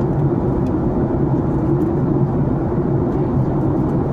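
Steady drone of an airliner's jet engines and rushing air heard inside the passenger cabin in flight, an even noise with a constant low hum.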